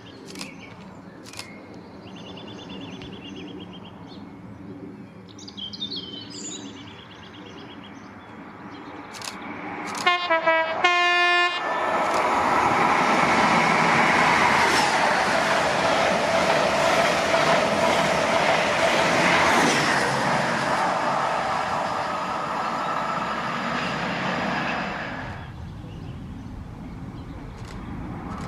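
Midland Pullman HST diesel train approaching with a steady engine hum, then sounding its two-tone horn, high note then low, about ten seconds in. It then passes at speed with a loud, steady rush of wheels and engines that fades away after about twenty-five seconds.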